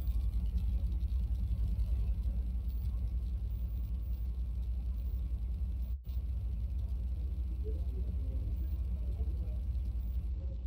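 Steady low hum picked up by an open microphone, with no speech; the audio drops out for an instant about six seconds in.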